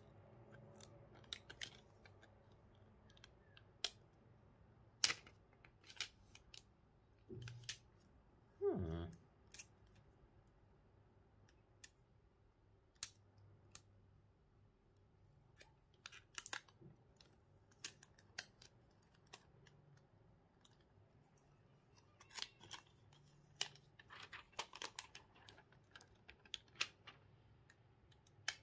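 Plastic protective wrap on a new smartphone being handled and picked at by fingers: scattered light clicks, taps and short crinkles, a denser run of crinkling a little past two-thirds of the way through, and two brief low sliding sounds about a quarter of the way in.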